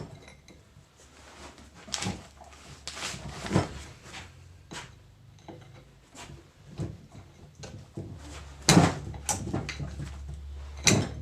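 Metal clicks and clunks from the spool levers of a dry, freshly reassembled R75/R80 hydraulic control valve being shifted by hand, the spools still sticking a little. A steady low hum sets in a few seconds in.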